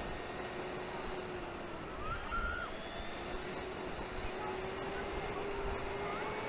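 Traxxas E-Maxx electric RC truck driving, its motor whine drifting slowly up and down in pitch over a steady rush of wind and road noise.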